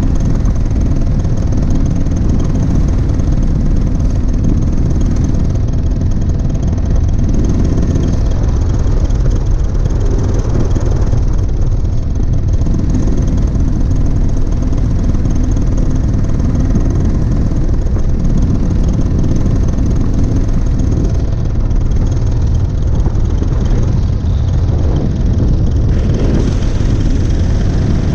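Paramotor engine and propeller running steadily in flight, with wind buffeting the microphone.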